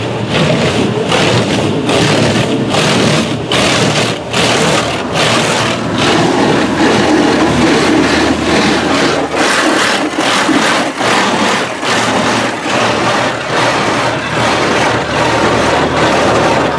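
Car wash high-pressure rinse jets spraying water against the windshield and body, heard from inside the car as a loud, continuous hiss and drumming that pulses about twice a second as the spray sweeps over.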